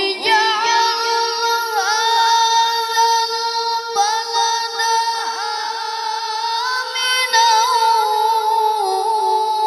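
A boy reciting the Qur'an in the melodic tilawah style, holding long, high, ornamented notes that waver and slide in pitch. He is amplified through a handheld microphone.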